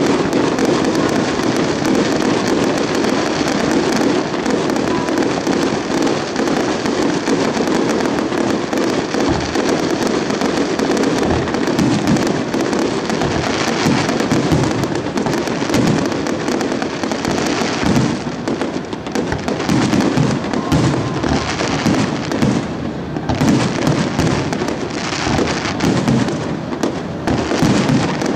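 Aerial fireworks bursting in rapid succession: a dense, unbroken run of bangs and crackle, thinning briefly twice in the second half.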